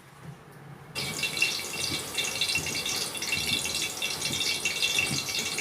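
Hot oil sizzling and crackling in a pan, starting suddenly about a second in as food goes into it, then holding steady.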